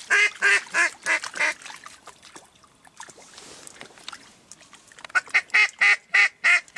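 A hunter's mallard duck call blown in hen-like quacks, close and loud: a run of about five quacks at the start, then after a pause a quicker run of about eight near the end. It is calling passing ducks in to the decoys.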